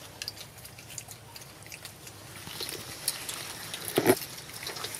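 Long-tailed macaques chewing and handling soft food: an irregular patter of small wet clicks and smacks. One louder short sound comes about four seconds in.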